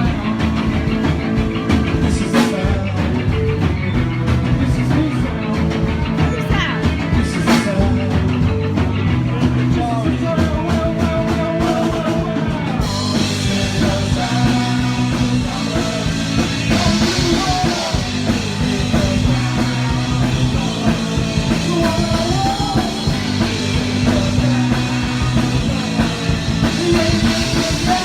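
Punk rock band playing live: two electric guitars, bass guitar and drum kit, loud and driving, with the cymbals opening up brighter about halfway through.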